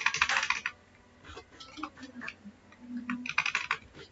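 Computer keyboard keystrokes clicking: a quick flurry at the start, a few single keys, then another flurry about three and a half seconds in.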